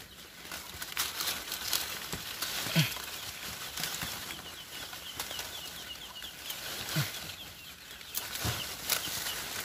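Star apple leaves and twigs rustling and brushing as they are pushed aside, with a few dull thumps. Around the middle comes a short run of rapid, high chirps.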